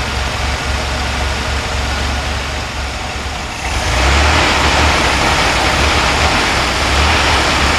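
1966 Corvair's air-cooled flat-six engine running at idle, and about four seconds in it gets louder and busier. It is the engine whose rough, intermittent running and stalling is being chased, with a little knock at start-up.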